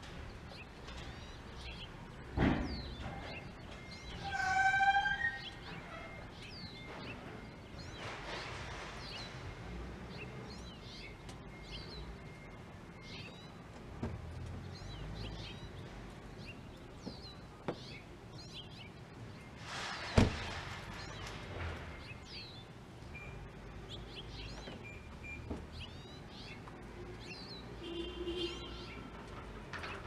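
Small songbirds chirping over and over over a steady background noise. A sharp thump comes about two seconds in, a short wavering call with several overtones near five seconds, and a louder thump with a brief burst of noise about twenty seconds in.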